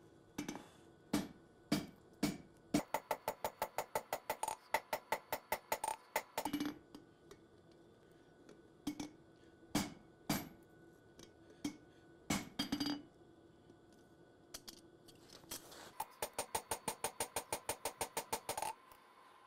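Hand hammer striking a red-hot 52100 steel knife blade on an anvil, with single heavier blows between two long runs of rapid light blows, each strike ringing with a metallic tone. The blade is being forged into a preform, bent downward so that hammering in the bevels later will swing it back straight.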